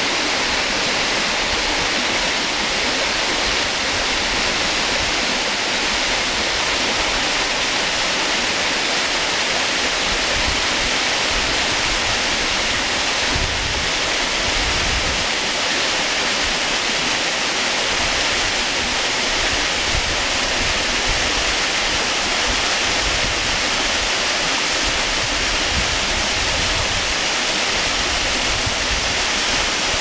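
Jōsei Falls, a waterfall with a 126 m drop, pouring over rock: a loud, steady rushing hiss of falling water.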